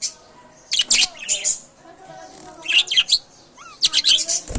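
Budgerigars chirping and chattering: three quick bursts of sharp, high chirps about a second apart over a faint, wavering warble, the cheerful chatter of contented budgies.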